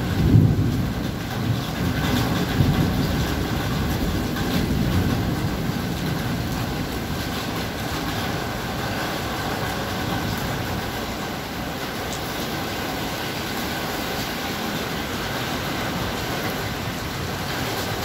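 Heavy rain pouring steadily onto a flooded street, with a low rumble during the first few seconds.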